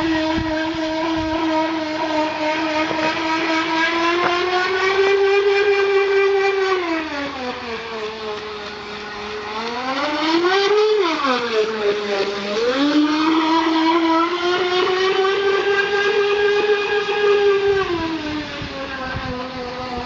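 Small motor of a 1/16-scale radio-controlled tunnel-hull powerboat whining as the boat runs on the water. The pitch drops and climbs several times with the throttle: down about seven seconds in, a short climb and fall again around halfway, back up, then easing down near the end.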